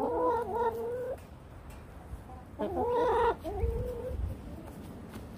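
Domestic hens calling: two drawn-out calls of about a second each, one at the start and one about two and a half seconds in.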